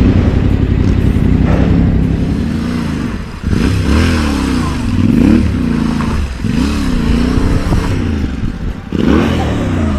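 Yamaha Ténéré 700 parallel-twin engine being ridden in tight circles on hard desert ground: a steady note at first, then from about three and a half seconds in the revs rise and fall again and again, about once a second, as the throttle is worked.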